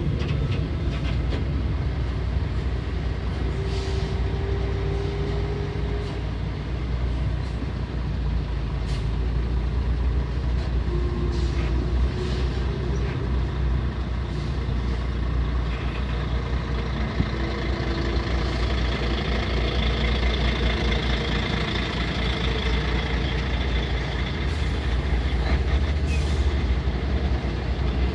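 Heavy trucks' engines running in slow, queued highway traffic: a steady low rumble, with a few brief higher tones and clicks now and then.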